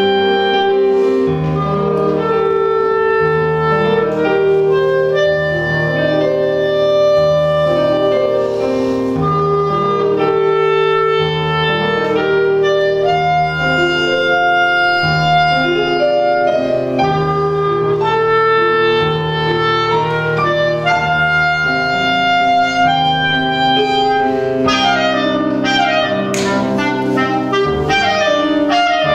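Clarinet playing a solo melody of held and moving notes with piano accompaniment beneath it, turning to a run of short, detached notes near the end.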